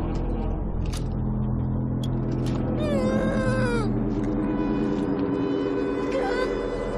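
A woman's pained cries and moans, with one wavering cry that falls in pitch about three seconds in, over a low held drone. The cries come as she pulls a metal shard of aircraft wreckage out of her leg.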